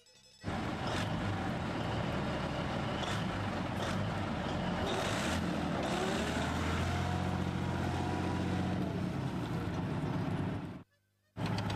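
A BMP-1 infantry fighting vehicle's diesel engine runs as the tracked vehicle drives off across grass. The engine pitch rises and falls about halfway through. The sound cuts out briefly just after the start and again about a second before the end.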